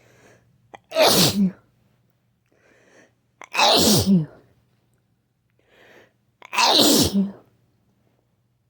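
A sick person sneezing three times, about three seconds apart. Each sneeze comes after a short in-breath.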